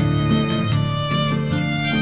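Instrumental background music: a melody over a steady beat.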